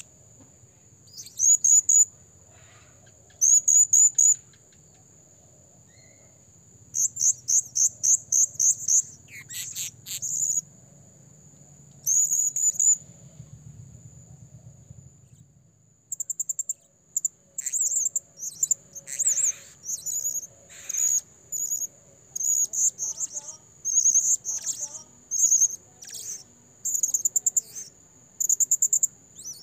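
Blue-crowned hanging parrot (serindit) calling: quick runs of shrill, high-pitched chirps in groups of several notes, scattered at first and coming almost without pause in the second half. A steady high whine sits under the first half.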